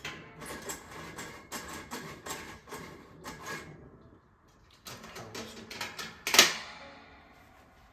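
Metal clinking and rattling as the burner cage of a kerosene heater is shifted around to get the flame going evenly around the burner. There is a quick run of clicks, a short lull, more rattling, and then one loud clank a little after six seconds in.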